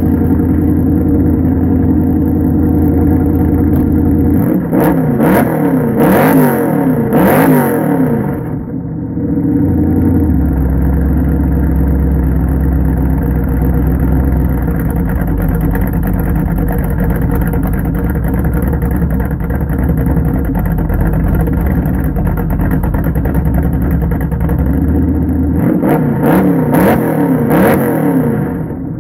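1974 Plymouth Scamp's 318 V8 running through headers with the exhaust cutouts open. It is revved in a series of quick blips starting about four and a half seconds in and again near the end, and idles steadily in between, the idle settling lower after the first revs.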